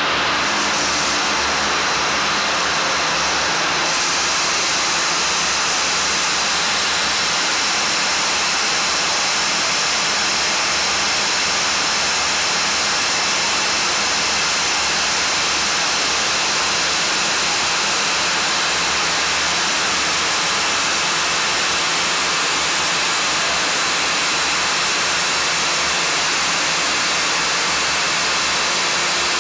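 Yarn twisting machine running: a steady, even whirring hiss from its spinning spindles, with a few faint steady tones on top.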